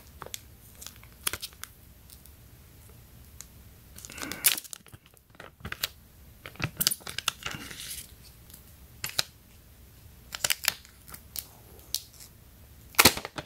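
Clear plastic shrink-wrap being pulled off a phone box by its pull tab: scattered crinkles and tearing crackles, with louder bursts about four and a half seconds in and near the end.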